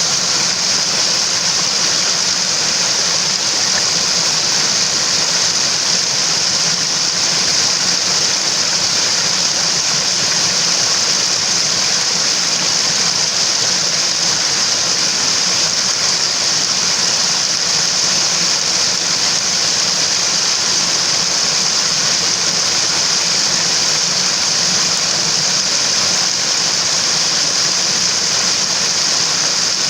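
Water of a mountain stream rushing steadily: an even, unchanging hiss of running water, strongest high in pitch.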